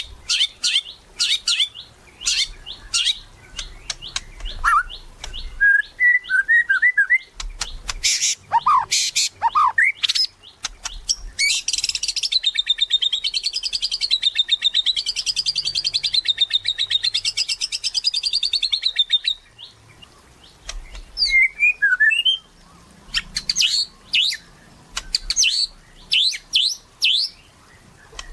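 White-rumped shama (murai batu) in full song: a run of varied sharp whistles and chattering phrases, broken about a third of the way in by a long, rapid buzzy trill lasting about eight seconds.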